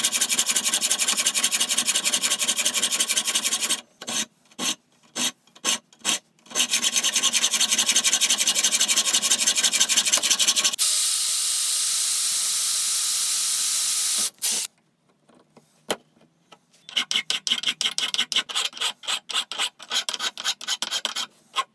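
Hand hacksaw cutting through a cast metal lathe headstock stand held in a vise, in rapid back-and-forth strokes with a few short pauses. Near the end a flat hand file rasps on the cut metal edge in quick strokes.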